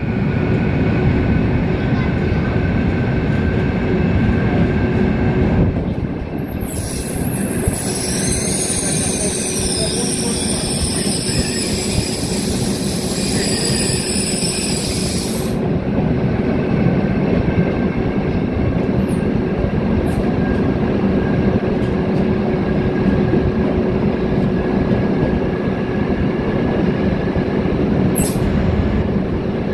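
Berlin U-Bahn subway train running through a tunnel, heard from an open-top car: a steady rumble of wheels on rails with a constant hum. About six seconds in, a high, wavering wheel squeal sets in and lasts roughly nine seconds, typical of steel wheels grinding on a curve. A few brief squeals follow later.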